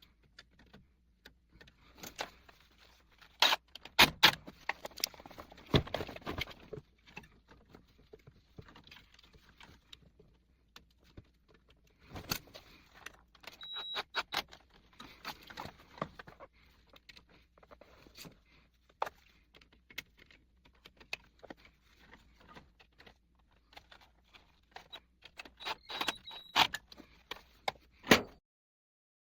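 Intermittent clicks, scrapes and small metallic rattles of wires, tools and a GFCI outlet being handled while the outlet is wired to its terminal screws in a metal electrical box. The sound stops abruptly shortly before the end.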